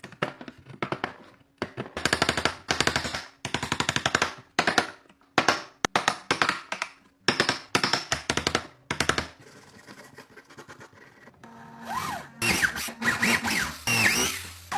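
Workshop tool noise during wood carving: short bursts of very rapid tapping, one after another, then after a pause a power tool running with its whine sliding up and down in pitch near the end.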